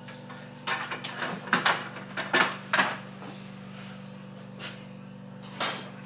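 A few sharp clicks and knocks over about two seconds, then one more near the end, as a small digital thermostat unit and its cable are handled and set down on a fridge top. A steady low hum runs underneath.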